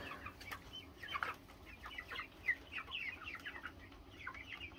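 A flock of three-month-old chickens making many short, high, falling peeps and clucks as they crowd round a feeder.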